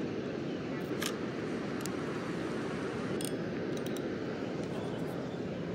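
Steady rush of water pouring over a river spillway, with a few light clicks from a spinning reel being handled.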